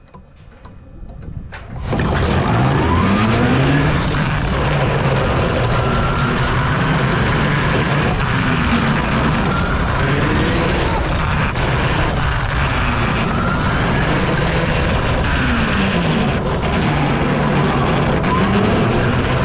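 Onboard sound of a Maurer Spike coaster car running along its track: wind rushing over the microphone, with the car's electric drive whining underneath, its pitch rising and falling as the car speeds up and slows. The noise starts suddenly about two seconds in, after a near-quiet moment.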